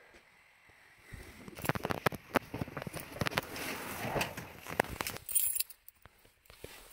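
Handling noises of someone getting into a car's driver seat: rustling, clicks and knocks, with keys jangling, starting about a second in and dying away near the end.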